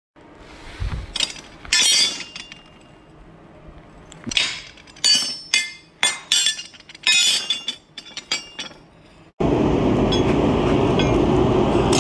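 Steel plow-teeth blades clinking and knocking against one another and the concrete as they are handled, a string of separate ringing metal clinks. About nine seconds in it changes abruptly to the steady, loud roar of a blown coal forge fire.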